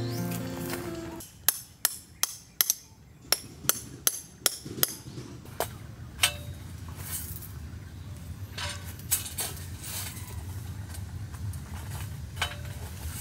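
A hammer drives a metal tent stake into gravel ground: about ten sharp metallic strikes in quick succession, then one more after a pause. Lighter scattered metal clicks and rattles follow as a folding metal wire rack is handled. Background music fades out in the first second.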